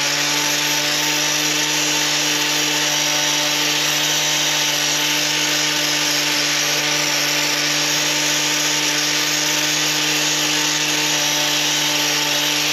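Angle grinder running steadily while grinding down a cow's claw sole. The trimming opens up the sole where an abscess is suspected underneath.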